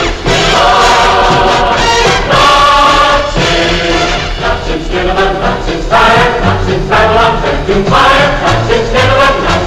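Film-musical soundtrack: a choir singing over orchestral music, the sung phrases changing every second or so. A steady low hum lies beneath it, the 30 to 40 Hz Perspecta control tones recorded on the mono optical track.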